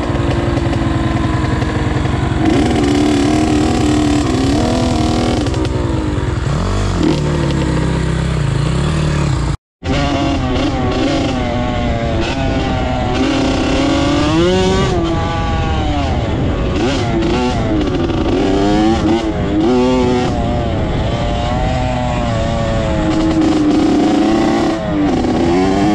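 Dirt bike engine running hard, revving up and dropping back again and again as the rider works the throttle and gears. The sound cuts out for a moment about ten seconds in.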